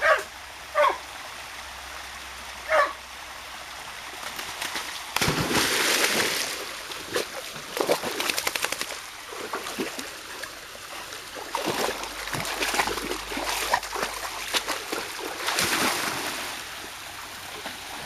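Flat-coated retriever giving three short barks, then running and splashing through a shallow stream. The splashes come in bursts over the steady rush of flowing water.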